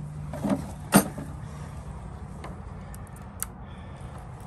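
A single sharp knock about a second in, then a few faint light clicks, over a steady low hum.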